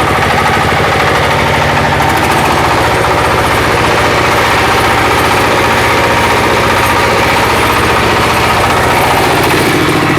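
Diesel engine generator set running steadily just after starting, loud, with a rapid, even firing beat.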